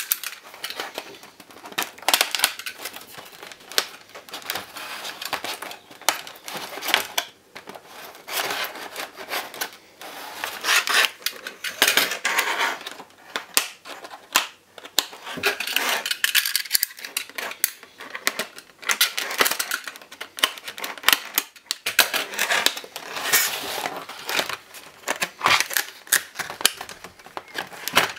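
Clear plastic blister packaging crinkling, crackling and clicking as it is handled and opened, in irregular bursts with short pauses.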